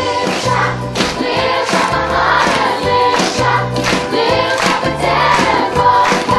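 A large young cast singing together in chorus over musical accompaniment with a steady beat.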